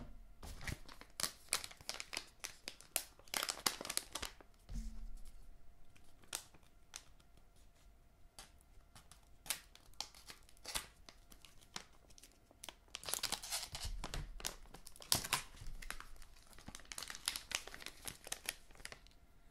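A thin white paper packet crinkling and rustling as it is opened by hand and unfolded, in quick sharp crackles that come in two busy stretches, one near the start and one in the second half.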